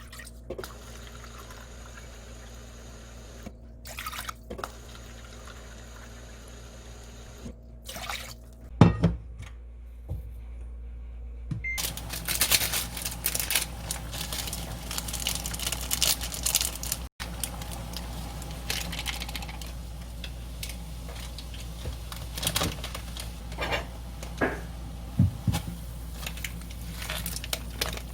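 Water in a cooking pot, with a sharp knock of cookware about nine seconds in and a dense crackling hiss with small clicks from about twelve seconds on, over a steady low hum.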